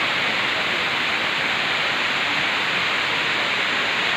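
Steady rushing of falling water from a waterfall, an even hiss with no breaks.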